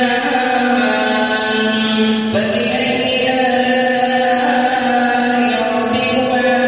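A man's voice reciting the Qur'an in a slow melodic chant (tilawah), holding long drawn-out notes, with a new phrase starting on a different pitch about two and a half seconds in.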